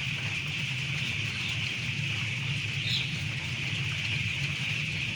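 A dense, steady chorus of many chickens calling at once in a large poultry house, over a steady low hum.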